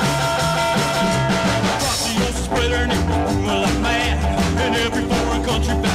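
Background music with a steady, repeating bass beat and a singing voice.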